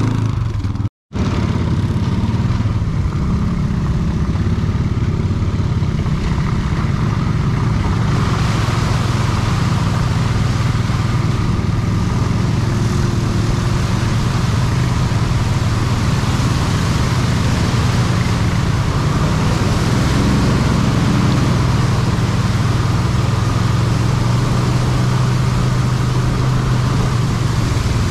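ATV engine running at a steady speed, with a brief break in the sound about a second in.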